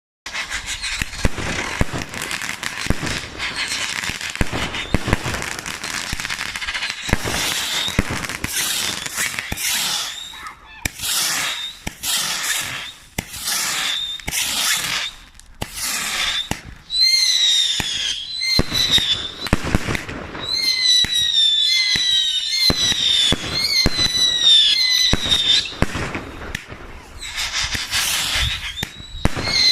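Fireworks going off: a fast, dense run of bangs and crackles. A little past halfway, whistling fireworks join in, a string of short falling and rising whistles over the bangs.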